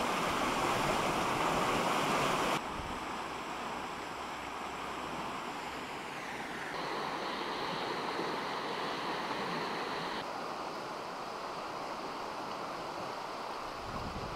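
River Esk in flood, rushing fast through the arches of a stone bridge and over its banks: a steady roar of water heard in several short clips that change abruptly, loudest in the first two or three seconds.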